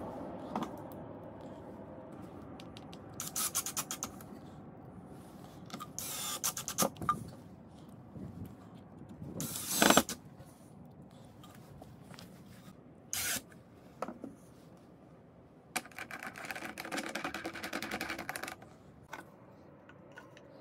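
Cordless drill-driver running in short bursts to drive screws into wood, among knocks and clatter of parts being handled on a wooden workbench. The loudest burst comes about halfway through, and a longer run of the drill lasting about two seconds comes near the end.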